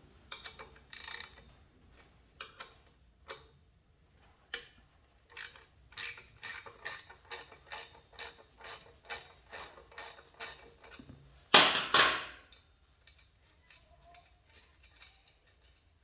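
Ratcheting wrench clicking in an even run of about three clicks a second as it loosens the mounting nut of a bicycle's front caliper brake, with a few scattered handling clicks before it. A brief, louder clatter comes about three-quarters of the way through.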